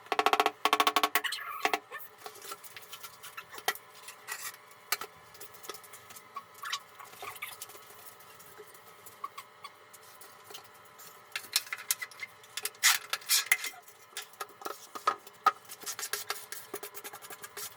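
Hand-tool work on bathroom tiles: irregular scraping, clicking and tapping. The loudest is a squeaky scraping burst in the first second and a half, with another busy spell of scrapes and clicks about twelve to fourteen seconds in.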